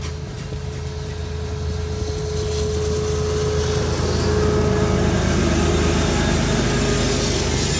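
Freight cars rolling past, then the rear distributed-power CSX diesel locomotive passing close, its engine humming and growing louder through the second half. A steady tone sounds over the first few seconds.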